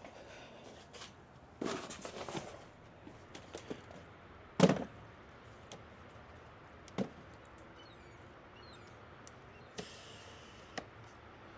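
A few scattered knocks and clatters of things being handled. The loudest is a sharp knock about four and a half seconds in, and there is a short rustle near the end.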